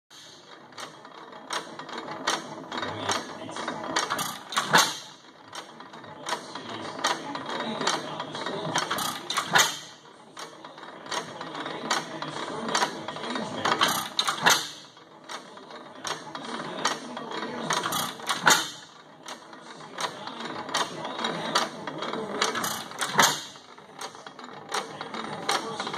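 Sattley 5 HP hit-and-miss gas engine running. It fires with a sharp bang about every four to five seconds and coasts between firings, with steady clicking from its valve gear and governor.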